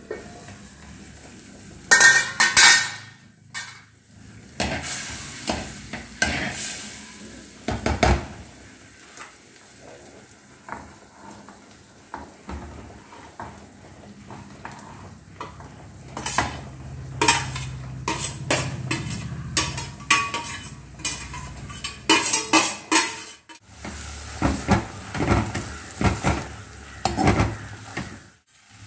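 Stainless-steel cookware clanking, loudest about two seconds in as the lid comes off a clay pot, then a steel spoon repeatedly scraping and clinking against a steel bowl and the clay pot as chopped green amaranth leaves are pushed in and stirred.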